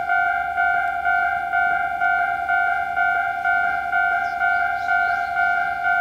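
Japanese railway level-crossing alarm, the standard electronic crossing bell, ringing a steady repeated ding about twice a second as the crossing is activated for an approaching train.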